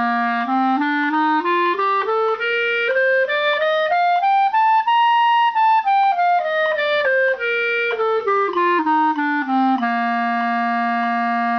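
Clarinet playing a two-octave scale, stepping evenly up note by note at about 96 beats a minute and back down, then holding the low final note.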